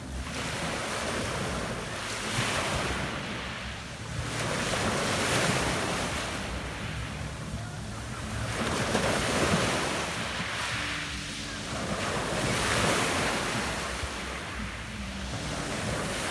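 Sea waves washing onto a pebble beach, swelling and fading about four times, with wind buffeting the microphone.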